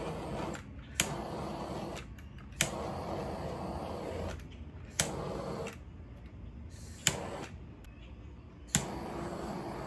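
Handheld butane torch fired in five short bursts: each sharp click of the igniter is followed by about a second of steady flame hiss that cuts off. This is the torching that brings up cells in the wet pour paint.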